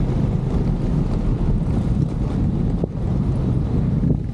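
Steady rush of wind buffeting the microphone while cycling through heavy rain, over a constant hiss of wet road and traffic noise.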